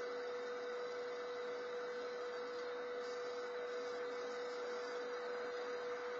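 A steady hum at one unchanging pitch over an even background hiss.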